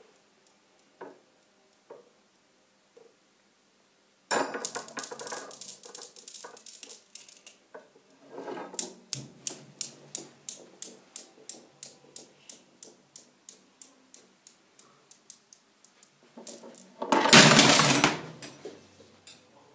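Newton's cradle, its steel balls clacking: set swinging suddenly about four seconds in and again about halfway, then a few even clicks a second that slowly die away. A loud burst of noise near the end.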